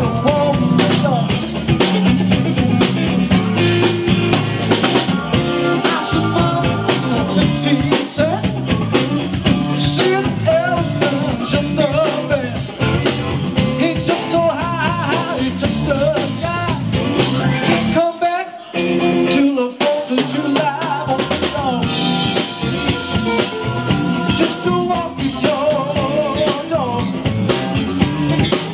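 Live blues band playing: electric guitar, bass guitar, drum kit and keyboards, with a man singing lead. About two-thirds of the way through, the bass and drums drop out for about a second in a stop-time break, then come back in.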